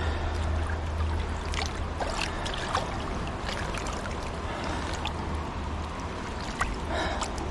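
River water rushing and gurgling steadily, with a few small splashes and drips scattered through.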